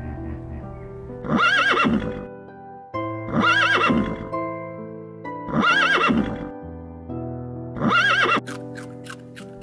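A horse whinnying four times, about two seconds apart, each call a short, quavering neigh, over background music. Near the end a run of quick clicks starts.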